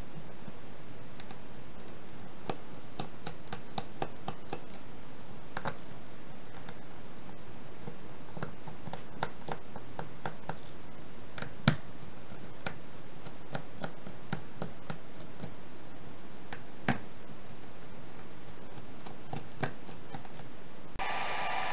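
A small screwdriver tip scraping and prying at the glued front panel of a ROCKR Bluetooth speaker, with scattered small clicks and scratches and a sharper snap about twelve seconds in. In the last second a heat gun starts blowing.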